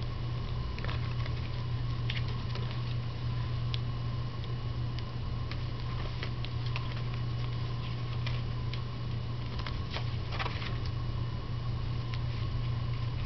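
Pages of a Levenger Circa disc-bound notebook being flipped and handled: scattered short clicks and brief paper rustles, one longer rustle about ten seconds in. A steady low hum runs underneath.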